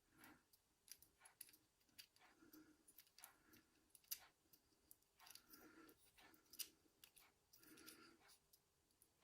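Faint, irregular small clicks and brief soft scrapes from the metal parts of a euro lock cylinder being handled during reassembly.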